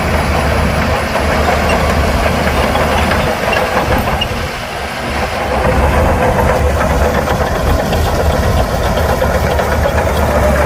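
Heavy diesel engine of an earthmoving machine running steadily under load with a deep low drone. About halfway through it eases off briefly, then picks up again.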